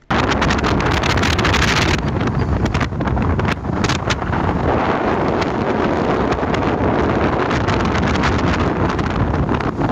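Strong wind blasting across the microphone: a loud, continuous rushing and buffeting noise.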